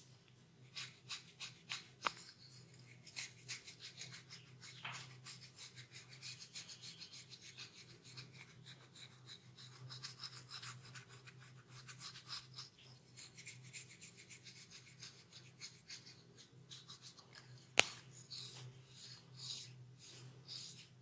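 Hands rubbing and scratching over skin and hair during a massage: a quiet, continuous run of short brushing strokes, with one sharp click near the end.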